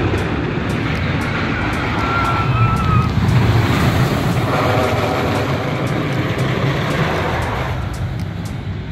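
El Toro wooden roller coaster train running along its wooden track, a loud low rumble that swells and then fades away near the end. A brief high squeal is heard about two seconds in.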